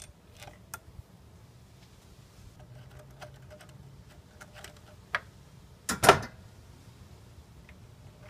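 Scattered light metal clicks and taps of a socket extension and small bolts being worked and handled in an engine bay, with one louder clatter about six seconds in.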